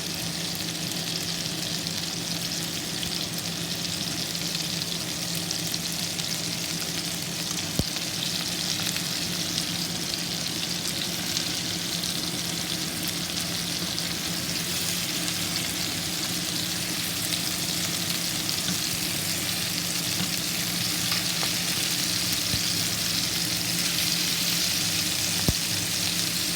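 Chicken frying in a pan on the stove, a steady sizzling hiss that grows slightly louder toward the end, over a low steady hum. Two sharp clicks stand out, one about eight seconds in and one near the end.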